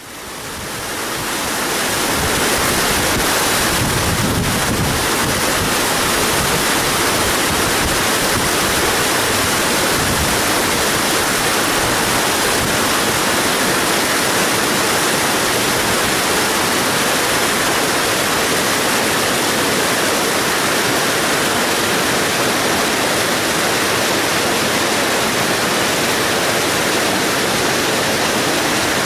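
Airbus A320-214's CFM56 turbofan engines heard from the ground on landing approach: a steady, even rushing jet noise with no distinct whine, fading in over the first two seconds.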